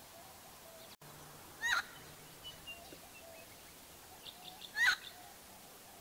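Helmeted friarbird calling: two loud short calls about three seconds apart, with a few softer short notes between them and just before the second.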